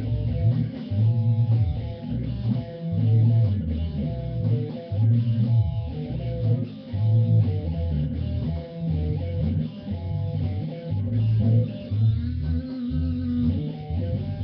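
Stratocaster-style electric guitar played with picked single notes forming a melody, over a steady low bass line that repeats about once a second.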